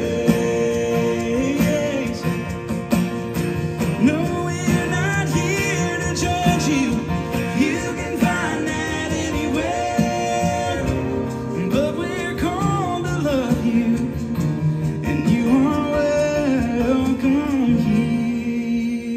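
Live gospel music: a male voice singing over two acoustic guitars.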